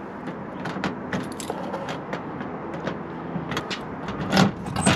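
Keys jangling and clicking against a metal cabinet's lock, with a louder metallic clatter about four and a half seconds in.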